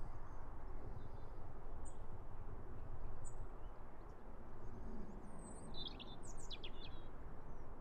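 Low steady outdoor rumble with small birds chirping faintly: single high chirps about two and three seconds in, and a quick run of chirps around six seconds in.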